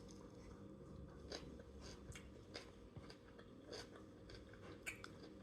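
Faint chewing with soft, scattered mouth clicks as someone eats a rice and vegetable bowl close to the microphone.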